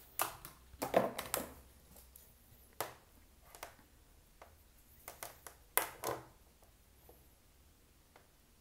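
Hands handling a cut RCA cable: a series of short rustles and clicks, loudest about a second in and again near six seconds, then quiet.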